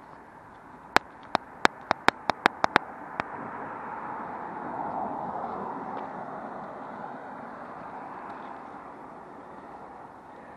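Riding noise of a Backfire Ranger X2 all-terrain electric skateboard on the road, with a quick run of about eight sharp clicks in the first few seconds. A rushing noise then swells to a peak midway and slowly fades.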